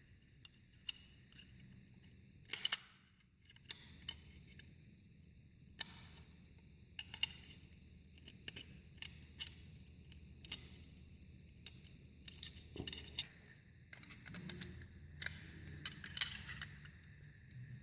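Light metallic clicks and taps, scattered irregularly, from a doorknob lock's parts being worked with a cylinder removal tool to release the lock spindle.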